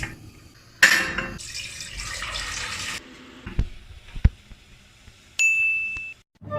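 Water running briefly from a kitchen tap, then two sharp knocks and a single steady electronic beep lasting under a second near the end.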